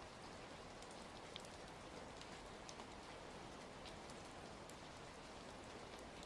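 Quiet, steady rain, with scattered sharp crackles and pops from a wood fire.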